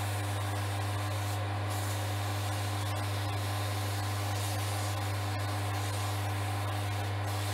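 Axminster Craft wood lathe running at a steady speed, its motor giving a constant low hum, while very fine 3000-grit sandpaper held against the spinning olivewood pen blanks makes an even hiss. At this fine grit the sanding noise is slight.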